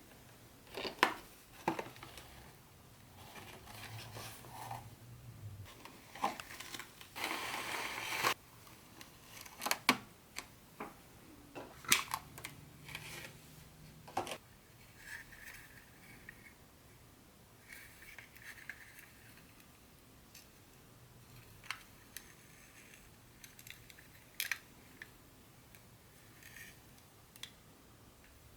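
Close-up handling sounds of model train packaging and parts: scattered sharp clicks and light taps, with a rustling scrape lasting about a second roughly seven seconds in.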